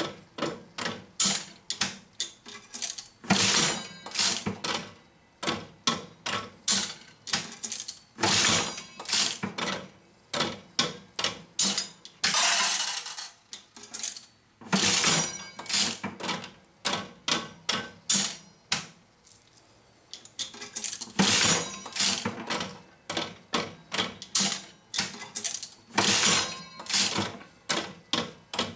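Aristocrat Elite one-cent mechanical slot machine being played spin after spin: the reels whirr and clack to a stop, and the mechanism clicks and clatters in bursts every few seconds. A longer metallic rattle comes about twelve seconds in.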